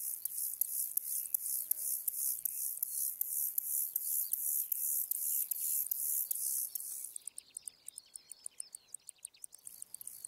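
Grasshopper stridulation: a high, hissing buzz pulsing about three to four times a second. About seven seconds in it stops and gives way to a quieter, faster run of high ticks.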